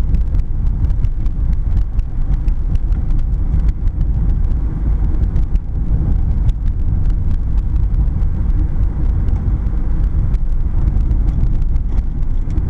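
Steady low rumble of a car being driven, road and engine noise heard from inside the cabin.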